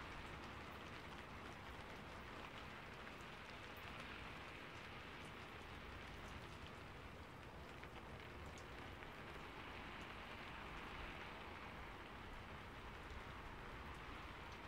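Steady light rain falling, a soft even hiss with faint scattered ticks of drops.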